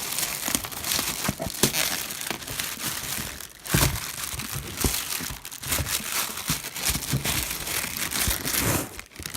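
Packing paper and packaging being crumpled and torn by hand while a box is unpacked: a continuous crackling rustle with many sharp crinkles.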